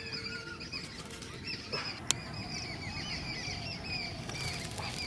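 Small birds chirping in many short, quick repeated calls, with one sharp click about two seconds in.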